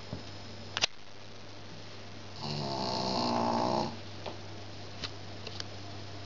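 A small flat-faced dog snoring: one long snore starts about two and a half seconds in and lasts about a second and a half, with a few faint clicks around it.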